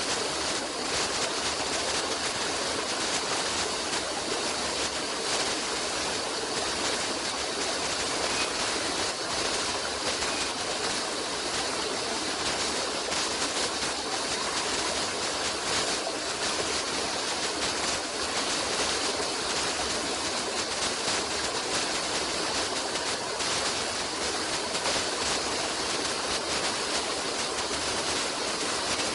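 Running water of a stream, a steady rush that does not let up.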